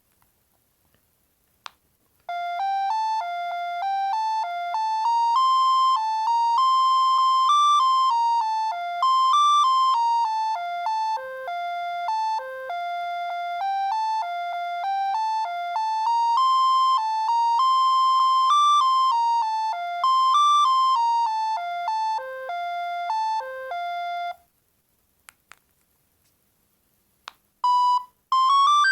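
Bird S296 mobile phone playing a ringtone through its loudspeaker: a bright electronic melody, one note at a time, running for about twenty seconds and then stopping. A few short clicks come before and after it, and the next ringtone starts near the end.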